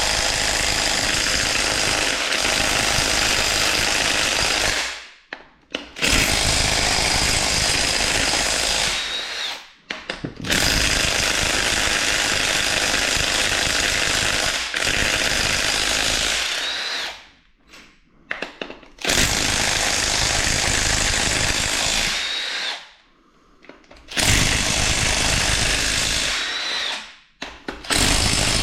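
Cordless impact wrench hammering in five runs of several seconds each, with brief pauses between, as it breaks loose and spins out the main bearing cap bolts on a 2.4 GM EcoTec engine block.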